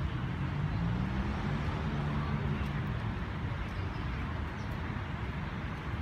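Outdoor city ambience: a steady rumble of road traffic with faint voices in the distance.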